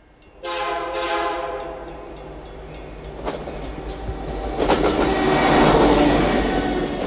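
Train horn sounding about half a second in, then the noise of a passing train, which grows louder and is loudest near the end.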